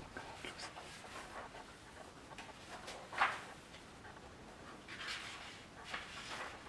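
Faint rustling and handling noises of papers at a worktable, with one louder brief rustle a little past three seconds in.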